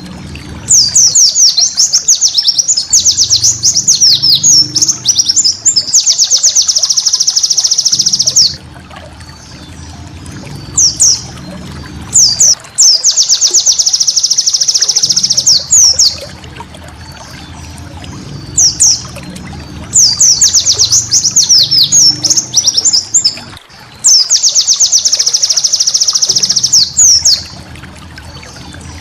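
White-eye (pleci) song: rapid runs of high chirps and fast buzzy trills in three long sets, with short single phrases between them, over a low trickle of water.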